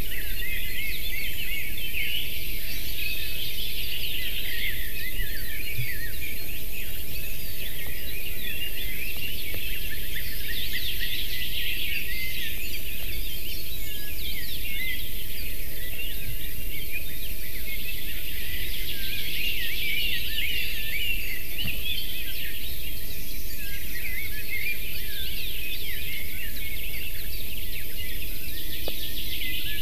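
Many songbirds singing at once, a dense mix of short high chirps and trills, over a steady low rumble.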